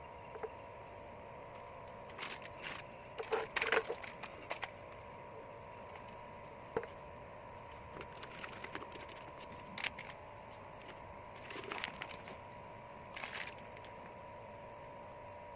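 Scattered light clicks and knocks, a cluster of them early and more spread out later, over a steady faint hum.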